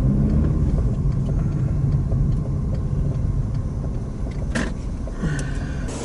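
Car engine and road noise heard from inside the cabin, easing off as the car slows to a stop. There is a sharp click about four and a half seconds in and a short high tone near the end.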